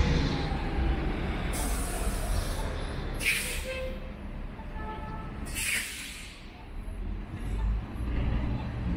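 City street traffic rumbling, with three short air hisses about two, three and a half, and six seconds in, like a bus's air brakes releasing.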